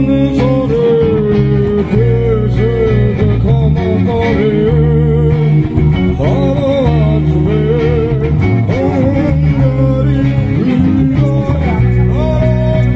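Guitar-led music: a bending, wavering melody line over sustained low bass notes.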